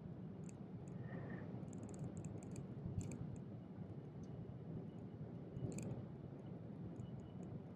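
Low steady rumble of a passenger train running, heard from inside the carriage, with scattered faint clicks, the clearest about three and six seconds in.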